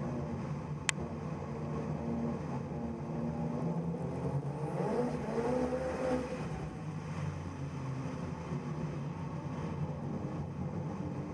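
Drift car engine heard on board, running through corners with the revs rising and falling, busiest and loudest around the middle. A single sharp click about a second in.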